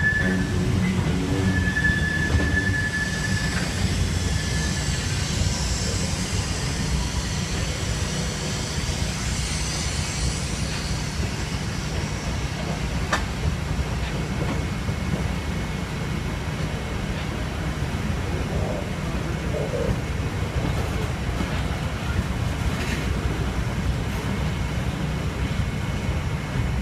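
Freight train's boxcars and tank cars rolling past close by: a steady low rumble of wheels on rail, with a high wheel squeal in the first few seconds and a couple of sharp clicks later on.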